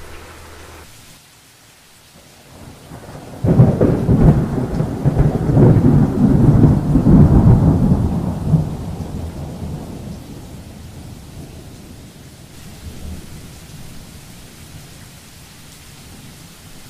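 Thunder: a sudden loud crack about three and a half seconds in, rumbling for about five seconds and dying away. Steady rain goes on underneath.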